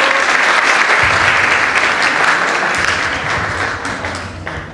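Crowd applause: many people clapping steadily in a hall, the clapping dying away near the end.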